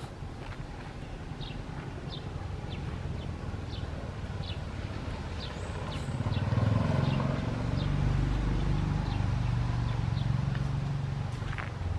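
Outdoor ambience: a run of short, high chirps, about one or two a second, over a low rumble that grows clearly louder about halfway through.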